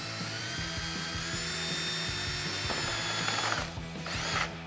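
Cordless drill spinning up and boring a 20 mm hole through a plastic trim bezel. It runs steadily for about three and a half seconds, then stops, with a short second burst of the drill near the end.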